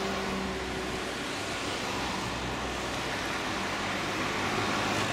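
Steady outdoor traffic and rail-yard noise, an even rushing hiss with a faint low hum, growing slightly louder in the second half.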